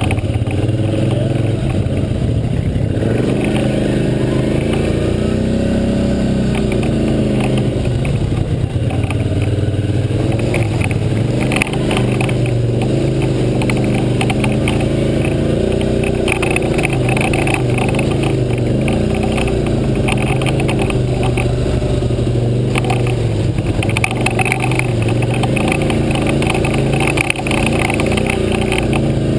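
ATV engine running while riding, its pitch rising and falling with the throttle over the whole stretch, with mud and water splashing up from the tyres at times.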